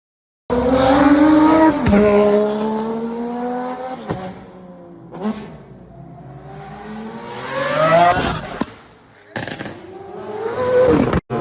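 Naturally aspirated supercar engine revving hard and accelerating, its pitch climbing in several pulls that each break off sharply before the next.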